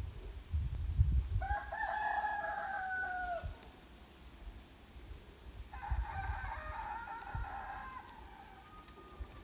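A rooster crowing twice, two long drawn-out calls each falling at the end. There is a low rumble on the microphone in the first second or so.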